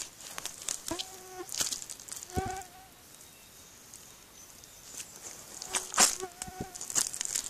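Leather work boots treading in thick, sticky mud: wet squelches and sucking smacks as the soles press in and pull free, with a few short squeaky tones. It goes quiet for a couple of seconds in the middle, and the loudest smack comes about six seconds in.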